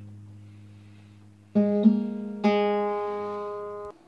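Acoustic guitar: a lingering low note fades, then about one and a half seconds in chords are strummed, two in quick succession and a third a moment later, ringing until they are cut off abruptly near the end.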